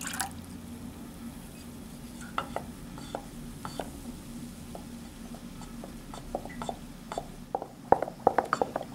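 A wooden spoon stirring a liquid Coca-Cola and soy sauce marinade in a stainless steel bowl, with scattered light clicks and knocks of the spoon against the bowl that come thicker near the end. A short splash of vinegar being poured in is heard right at the start.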